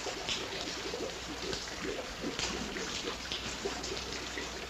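Running water trickling steadily, an even watery background with a low hum beneath it.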